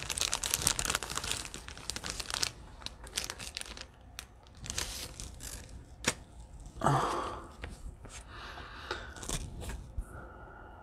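Plastic trading-card pack wrapping crinkling and tearing, loudest in the first couple of seconds, followed by scattered sharp clicks and rustles of the cards and wrapper being handled.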